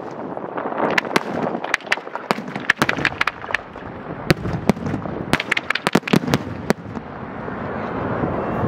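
Professional fireworks display: many sharp bangs and crackles in quick succession, giving way about seven seconds in to a steadier, swelling rumble without distinct reports.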